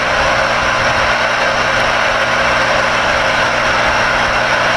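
Steady rushing static with a low, even hum from a CB radio's speaker, as a carrier comes in on the channel.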